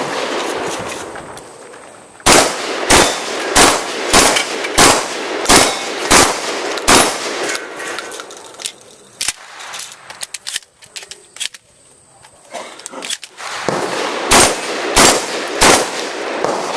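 12-gauge shotgun fired rapidly: eight shots about two-thirds of a second apart, then several seconds of small clicks as shells are loaded into the gun, then three more quick shots near the end.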